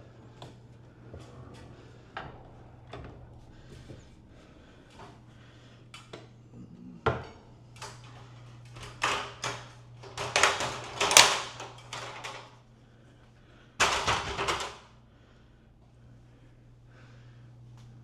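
Knocks, clicks and clattering of a ladder and attic access hatch being handled and set up, with longer, louder rattling in the middle and one more short burst a little later. A steady low hum runs underneath.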